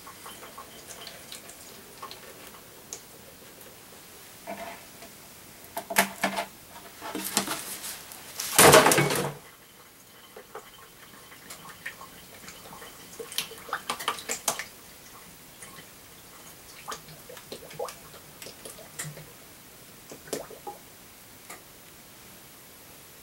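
Canola oil poured from a plastic jug into a plastic tub, with scattered knocks and clatter of plastic containers being handled. The loudest sound is a brief rushing noise about nine seconds in.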